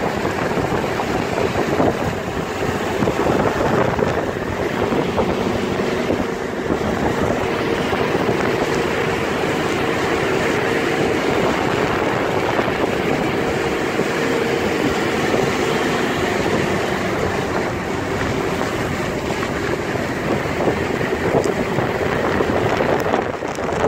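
Steady noise of a vehicle driving on a wet mountain road in heavy rain: tyre, wind and rain noise with a faint low hum.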